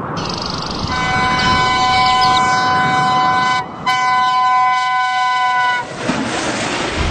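Locomotive air horn sounding a chord of several notes in two blasts, a long one and then a shorter one after a brief break, over the rumble of the passing train.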